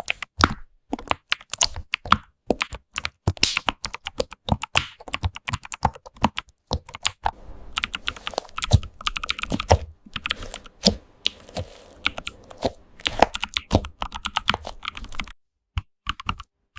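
Computer keyboard typing: rapid, uneven clicking of keys, with a pause of about a second near the end.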